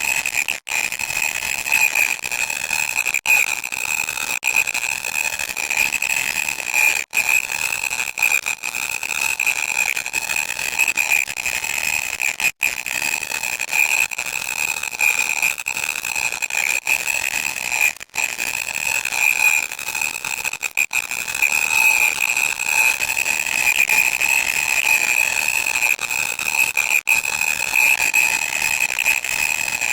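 Harsh electronic static with a steady shrill whine running through it, broken by brief dropouts every few seconds.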